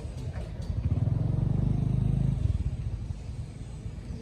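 A low rumble with a fast flutter in it, swelling louder from about one second in and easing off about two and a half seconds in.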